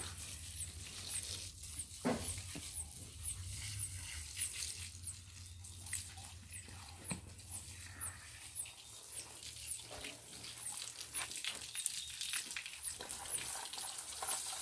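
Water from a garden hose splashing and dripping onto a horse's wet coat and the ground as she is washed, with scattered small splashes and drips.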